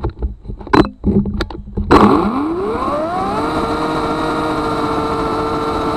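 Ego Power+ CS1800 18-inch battery chainsaw: after a few knocks, its electric motor starts suddenly about two seconds in, whines up in pitch over about a second and a half, then runs steadily as the chain cuts through a log.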